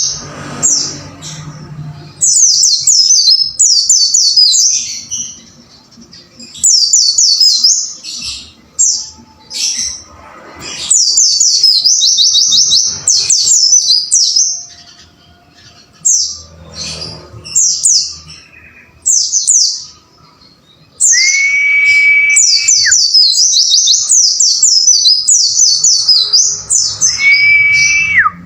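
White-eye (pleci) singing in bursts of fast, high, downward-slurred twittering notes, with short pauses between bursts. Twice, about two-thirds of the way in and again near the end, a long level whistle sounds lower beneath the song.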